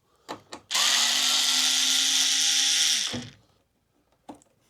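Power drill driving a Phillips bit, running steadily for about two and a half seconds to back out a screw, then winding down and stopping; a few light clicks of the bit and screw come before it and once near the end.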